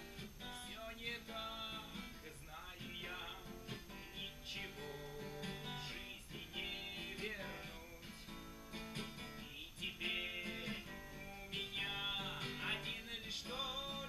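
Acoustic guitar strummed, playing a song. At several moments a voice gliding up and down in pitch sounds over it.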